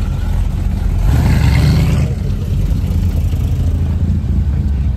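Car engine running close by, swelling briefly about a second in before settling back to a steady low drone.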